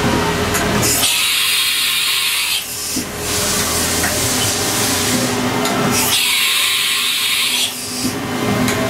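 Haas VF-3 CNC vertical machining center running a part program, its spindle cutting aluminum under coolant with a steady mix of machine noise. Twice, about a second in and again about six seconds in, a harsher high hiss takes over for about a second and a half.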